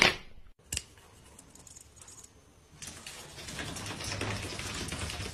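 The lid of a plastic laundry basket snapping shut with a sharp clack, then a lighter clack under a second later. In the last couple of seconds, a steady rushing noise grows louder, then stops abruptly.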